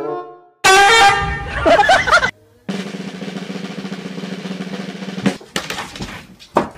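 Edited-in comedy sound effects: a loud blaring, honk-like blast lasting under two seconds, then a snare drum roll, closing with a few sharp hits.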